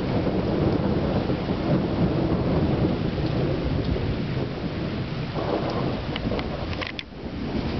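Thunder rumbling continuously and loudly, with rain falling. A few sharp ticks come near the end, and the rumble briefly eases about seven seconds in.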